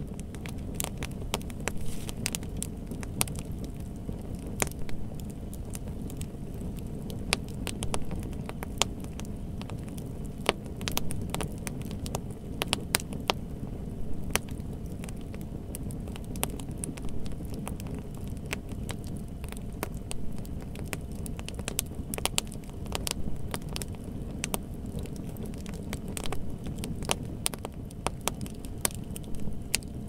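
Wood fire burning: frequent sharp crackles and pops over a steady low rumble.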